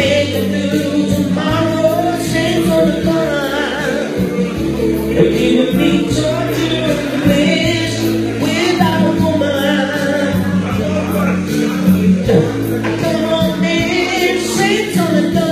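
A man singing into a handheld microphone over recorded pop-ballad music.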